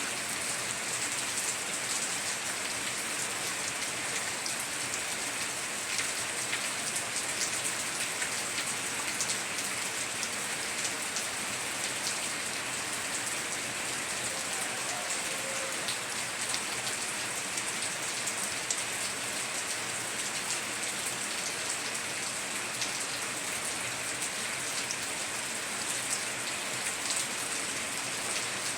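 Heavy rain falling steadily on a tiled roof, with many separate drop ticks through the hiss.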